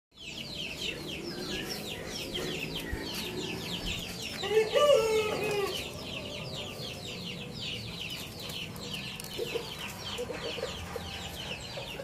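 Chickens: a steady stream of short, high, falling peeps, several a second, with a louder chicken call about five seconds in.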